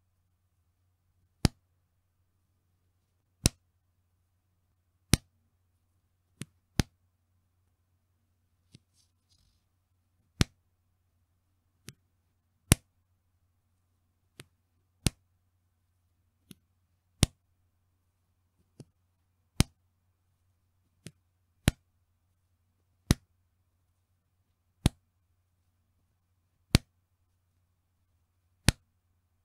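Bra's elastic band snapped again and again: sharp slapping snaps every second or two, some loud and some softer, over a faint low hum.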